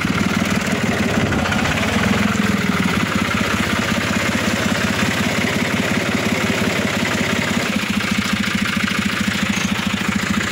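Small red tractor's engine running steadily, a fast even firing beat, heard from the driver's seat.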